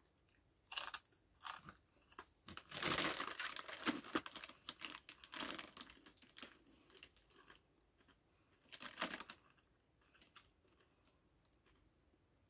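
Hand-cooked crisps crunching as they are bitten and chewed, mixed with crinkling of the crisp packet, in irregular bursts, the longest about three seconds in; it falls almost quiet near the end.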